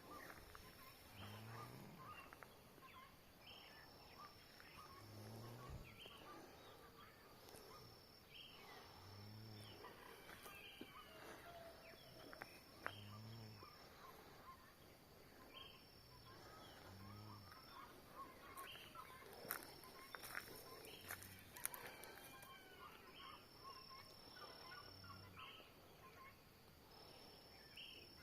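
Faint early-morning birdsong, many short chirps and trills. Through it runs a high steady note lasting about a second that repeats every two seconds or so, with a low call repeating at the same pace.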